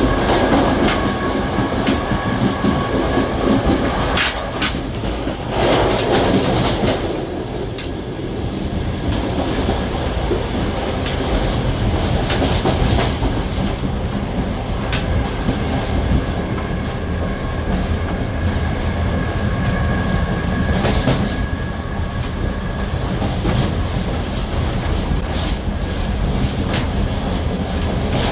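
Series 2100 electric multiple unit, an old ex-Spanish commuter train, running along the line as heard on board. A steady rumble is broken by short clacks over the rails, with a faint steady whine at times.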